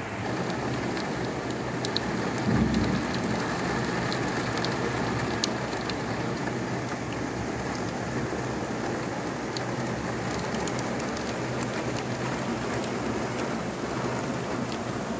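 Heavy rain pouring steadily: a dense even hiss with scattered sharp drop ticks. A brief low rumble comes about two and a half seconds in.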